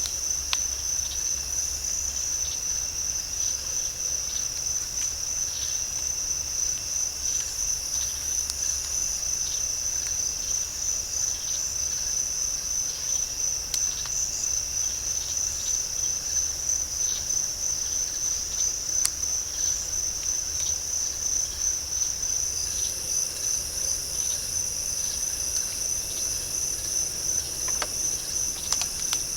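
Steady chorus of night insects trilling in a fast, even pulse at a high pitch. A second, still higher-pitched insect chorus grows louder about two-thirds of the way through.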